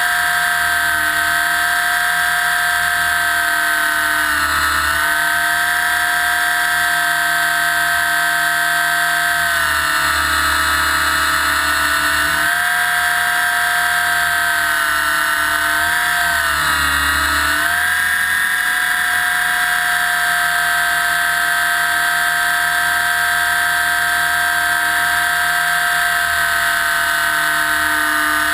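Align T-Rex 600 EFL Pro electric RC helicopter heard from on board: a loud, steady high whine from the electric motor, gears and spinning rotor. The pitch sags briefly three times and then recovers.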